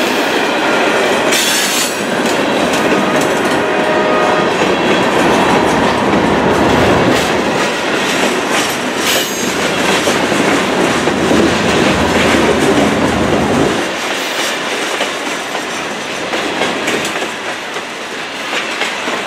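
Open-top hopper cars of a CSX rock train rolling past close by: steel wheels rumbling and clattering on the rails. The deep rumble eases off about 14 seconds in.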